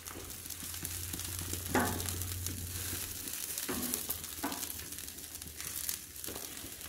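Chicken breasts sizzling steadily on a copper grill mat over a hot gas grill, with a few short clicks and scrapes from metal tongs as the pieces are turned.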